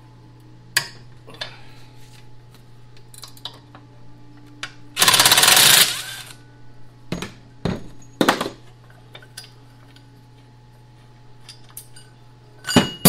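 Cordless impact driver hammering in one burst of about a second, tightening a blade bolt on a chipper-shredder's impeller plate. Several short metallic clinks and clanks of tools and parts follow.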